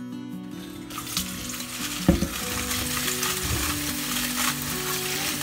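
Tap water running into a steel bowl of dried red chillies in a stainless steel sink while a hand rubs them clean; the water starts about a second in, with one thump about two seconds in.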